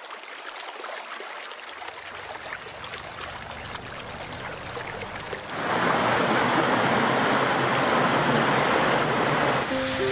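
A small creek trickling and splashing over rocks, which becomes a louder, fuller rush of flowing water about halfway through. Music comes in right at the end.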